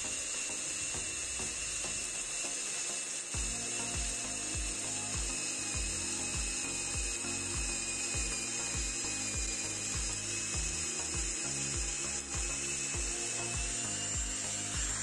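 A wooden rod being turned through a die, its cutting edge shaving the wood round with a rapid clicking chatter and a steady high whine. A steady low beat of background music comes in about three seconds in.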